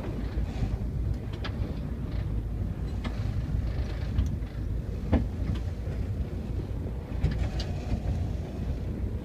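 Steady low rumble of a fishing boat, with scattered short knocks and clicks.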